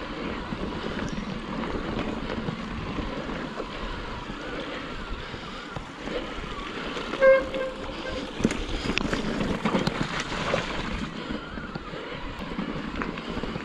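Wind buffeting the microphone over the rolling noise of a mountain bike on a rough trail. A short squeak comes about halfway through, followed by a few seconds of clicks and rattles from the bike.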